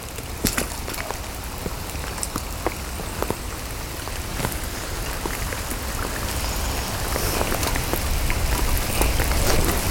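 Heavy rain: a steady hiss dotted with close, sharp taps of drops striking the plastic bag covering the camera, growing gradually louder.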